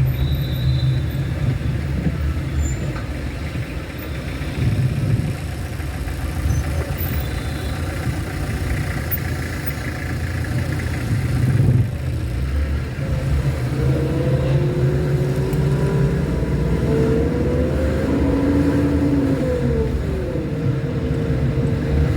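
Car on the road: steady low rumble of engine and tyres, with the engine pitch gliding up and down in the second half.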